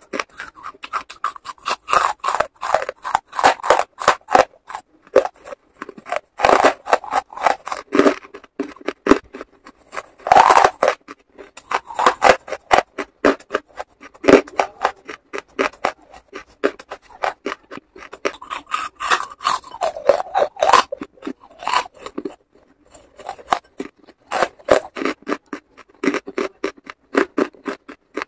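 Close-up crunching and chewing of lumps of charcoal: rapid, crisp crackles in dense runs, with a couple of brief lulls.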